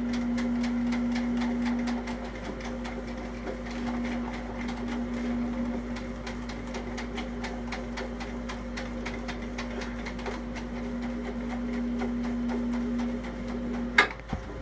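Electric drain snake running, its motor humming steadily while the spinning cable ticks and rattles rapidly as it is fed into a shower drain. Near the end the motor stops with a sharp click.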